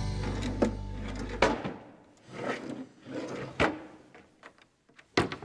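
Wooden wardrobe doors and drawers being pulled open and pushed shut during a rummage for clothes: several separate knocks and thuds about a second apart. A low held note of theme music cuts off about a second and a half in.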